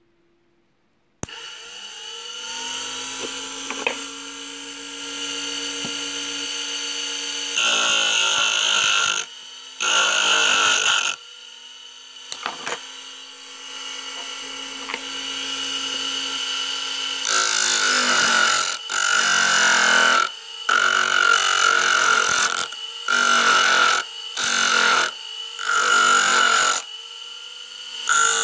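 Homemade lathe driven by a washing-machine motor: the motor switches on about a second in and spins up with a whine. From about eight seconds in come repeated loud grinding bursts, each a second or two long, as a tool bites into the spinning workpiece, coming quickly one after another in the second half.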